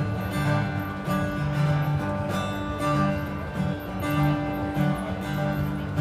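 Solo Taylor acoustic-electric guitar playing a song's instrumental intro, with steady rhythmic strokes and ringing chords.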